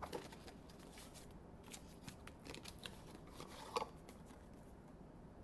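Faint, scattered clicks and scrapes from handling and opening a small puzzle-cube box, with one sharper click near the end.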